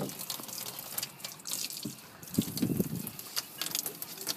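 Water dripping and splashing in small scattered taps and clicks, with a brief babble from a toddler about halfway through.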